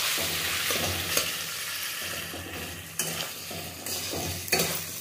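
Cubed pumpkin sizzling in hot oil in a kadhai while a flat metal spatula stirs it, with a few sharp scrapes and knocks of the spatula against the pan.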